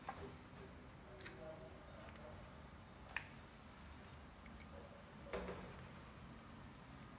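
A handful of light clicks and taps of small metal mounting screws and a screwdriver being picked up and set down on a tabletop, the sharpest about a second in.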